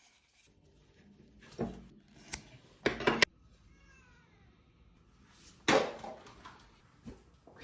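Several irregular knocks and clatters of woodworking, the loudest a quick pair about three seconds in and another a little before six seconds, with a faint squeak falling in pitch between them.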